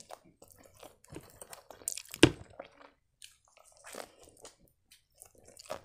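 Crunching bites into a deep-fried cheburek's crust and chewing, heard close up: scattered crackles, with the sharpest crunch about two seconds in.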